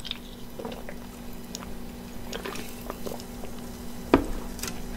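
Drinking sparkling water from an aluminium can: small wet gulping and swallowing sounds over a faint steady hum, then one sharp knock about four seconds in as the can is set down on the tray.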